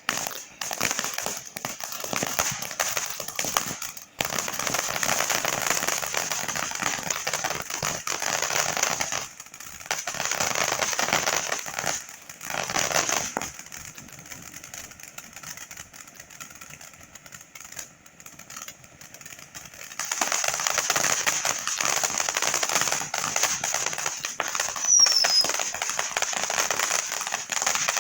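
Fireworks crackling: long runs of rapid small pops and crackles, with a quieter lull about midway, and a brief falling whistle near the end.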